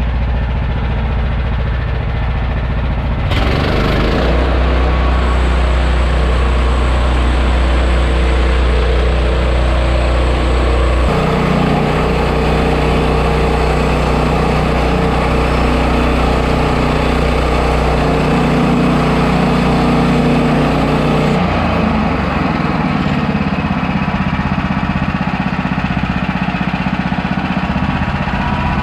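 Gas engine of a portable bandsaw sawmill running steadily, its note shifting about three seconds in, again about eleven seconds in, and once more about twenty-one seconds in.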